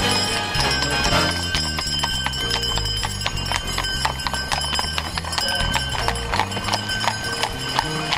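Horses' hooves clip-clopping on wet asphalt as they pull a wheeled carriage past, a steady run of hoofbeats.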